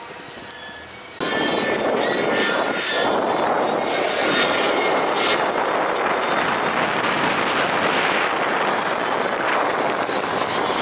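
Jet airliner flying low overhead, its engines a loud, steady rushing noise that comes in abruptly about a second in and takes on a higher hiss near the end.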